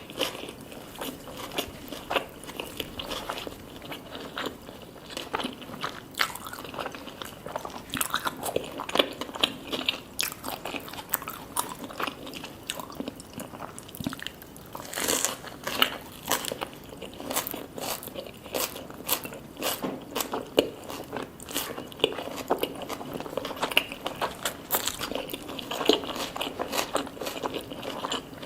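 A person biting and chewing food close to the microphone, with frequent irregular crunches throughout.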